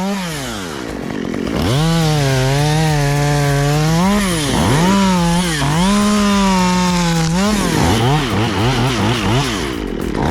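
Chainsaw cutting wood, its engine note dropping sharply as the chain loads in the cut and climbing back as it frees up, several times over. Near the end the pitch swings quickly up and down, about three times a second.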